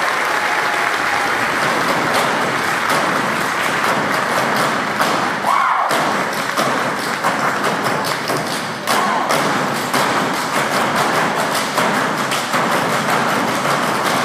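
A team of cloggers dancing in unison, their metal shoe taps striking the stage floor in a fast, dense run of clicks. The clicking starts about two seconds in, over the tail of audience applause.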